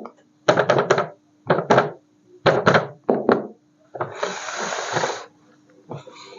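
Sharp knocks and clacks in quick clusters of two or three, then, about four seconds in, a hiss lasting about a second, over a faint steady hum.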